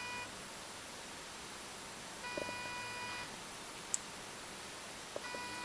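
The alarm pillow's electronic buzzer beeping: a steady high-pitched tone about a second long, repeating roughly every three seconds, faint. Light clicking comes with the later beeps.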